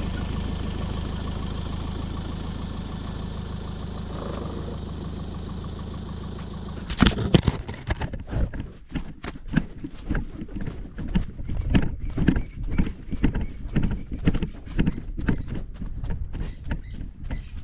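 A vehicle engine idles steadily. About seven seconds in, a sudden loud knock as a lioness seizes the GoPro, then a rapid, uneven run of thuds and knocks as she carries the camera off at a run, her footfalls jolting it.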